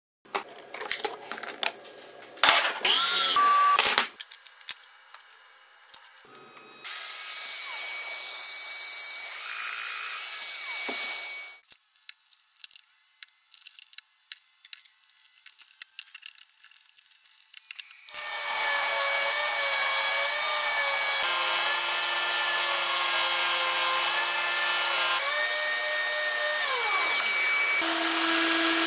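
Workshop sounds: scattered clicks and knocks of wood and tools being handled, a few seconds of even hiss, then a power tool running steadily for about eight seconds and winding down with a falling pitch. Near the end a Festool Rotex random-orbit sander starts up on oak.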